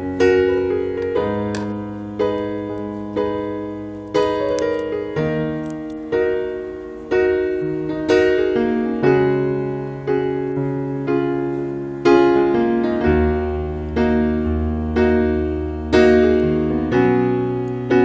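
Background keyboard music: a slow, gentle melody of struck notes that fade away, about one a second, over long held bass notes.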